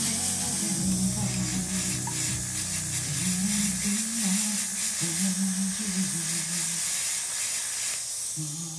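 Steady hiss of steam from a steamer jetting onto a dent in a wooden pool cue shaft to swell the wood fibres back up. The hiss dies away near the end.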